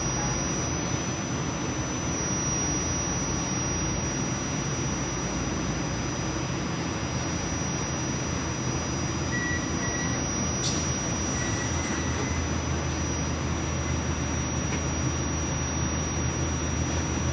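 Inside a moving RTA Blue Line light-rail car: a steady rumble and hiss of the ride with a thin, constant high whine over it. A deeper, steady hum comes in about two-thirds of the way through.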